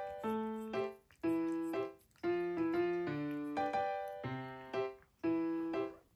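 Background music: a light keyboard tune played in short phrases, each starting about once a second and fading away.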